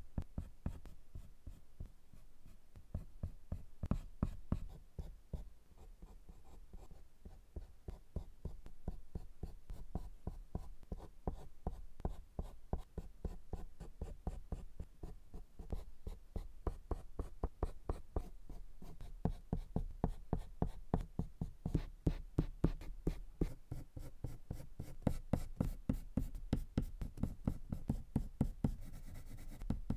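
Prismacolor colored pencil scratching across drawing paper in rapid short back-and-forth shading strokes. The strokes grow louder and more closely packed over the second half.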